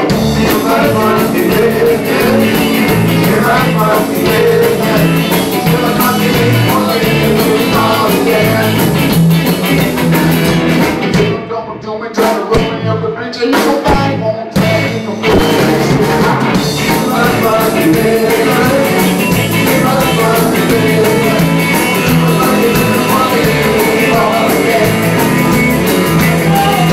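Live blues-rock band playing: electric guitars and drum kit. A few short stops near the middle, where the band cuts out briefly before coming back in.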